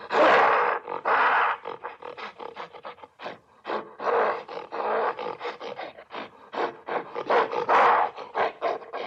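Gorilla roaring in several loud bursts, the loudest at the start and near the end, with rapid short breathy pulses, several a second, in between.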